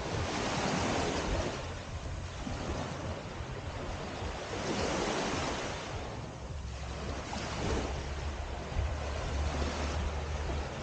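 Small waves washing up on a sandy shore, each wash swelling and falling back every few seconds, with wind rumbling on the microphone, stronger in the second half.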